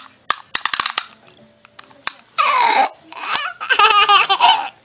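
Toddler laughing hard in bursts: quick giggles early on, a falling squeal about two and a half seconds in, then a longer run of belly laughs near the end.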